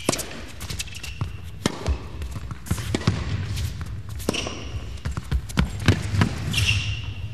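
A tennis rally on an indoor court: repeated sharp racket-on-ball strikes and footfalls, with a few short high squeaks, over a low steady hall hum.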